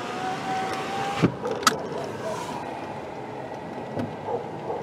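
Inside a car with the vehicle running: a steady whine for about a second that stops with a thump, then a sharp click, over a steady cabin noise.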